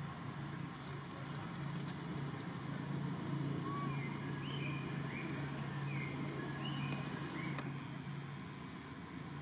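Outdoor ambience: a steady low hum under a thin, constant high insect whine, with a few faint short chirps in the middle.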